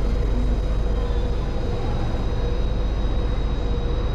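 Steady idle hum and low rumble inside a monorail car standing at a station with its doors open, with a constant mid-pitched tone and a faint high whine over it.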